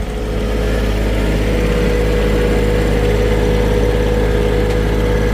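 Vehicle engine running steadily, with a constant whine over the low hum that comes in right at the start.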